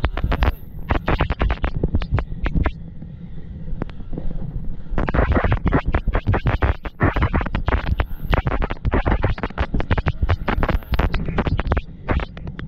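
Enduro motorcycle ridden over rough ground, heard close up: the engine's low running sound under dense, irregular knocks and scraping, easing off for a couple of seconds about three seconds in before picking up again.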